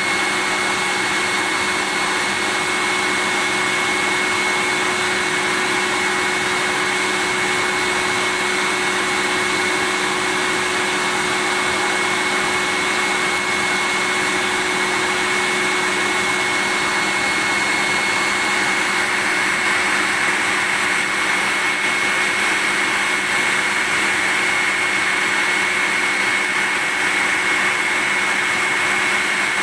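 Vacuum cleaner running steadily: an even rushing whir with a constant high whine on top, unchanging in pitch and level.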